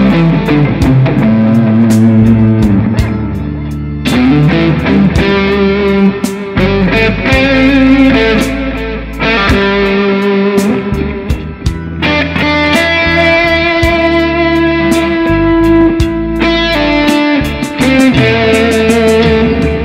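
Jackson electric guitar playing a lead solo in A minor, moving between A minor pentatonic, C Ionian and D Dorian lines, over a backing track with a steady beat and a low sustained bass underneath.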